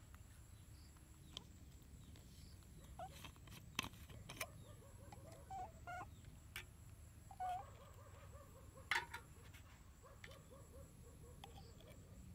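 Mostly quiet, with scattered light clicks and taps from a plastic baby bottle and formula scoop being handled, and a few faint short chirps.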